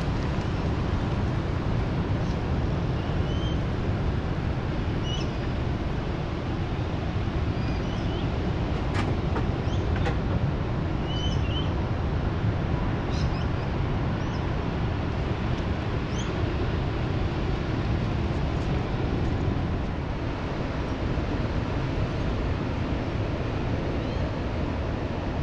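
Steady low rumble of wind buffeting the microphone as an electric mountain bike rides along, with short high bird chirps scattered through the first two-thirds and two sharp clicks around nine and ten seconds in.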